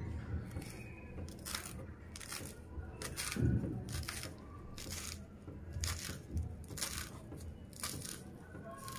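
Small kitchen knife chopping fresh coriander leaves on a wooden cutting board: crisp cuts through the leaves, each ending in a tap on the board, one or two strokes a second at an uneven pace.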